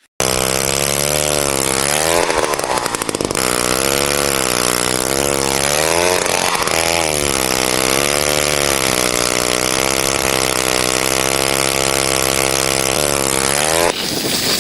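Engine-powered ice auger drilling a hole through lake ice, its motor running loud and steady. Its pitch dips twice as the auger takes load, and it cuts off near the end.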